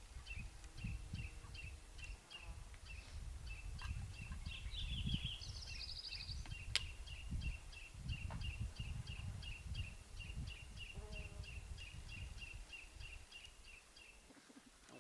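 Outdoor ambience with a high chirp repeating steadily about three times a second, over a low rumble of wind or handling on the microphone. A brief higher trill comes about five seconds in, and a single sharp click about seven seconds in.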